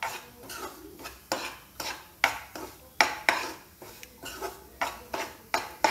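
Spatula scraping and stirring semolina (rava) in ghee around a kadhai, about two strokes a second, as the rava is roasted until brown.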